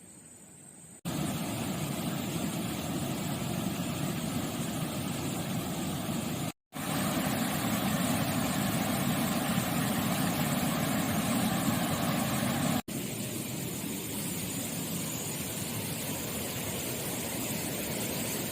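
Steady rushing noise with no tone or rhythm, heaviest in the low range. It breaks off abruptly and restarts about a second in, about a third of the way through and about two-thirds of the way through.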